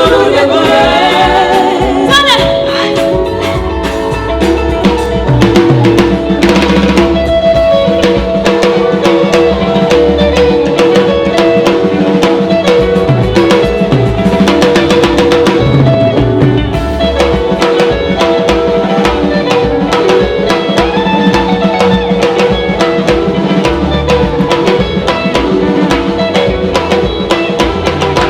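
Gospel band music with no singing: a drum kit with snare and bass drum keeps a steady beat under sustained instrumental chords.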